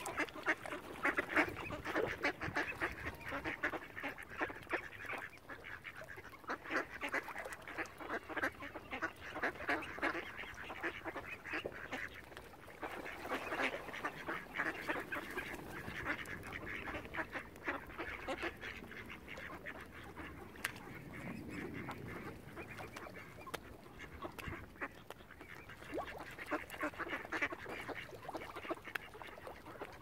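A group of mallard ducks quacking and chattering rapidly, in spells that rise and fall with short lulls between them.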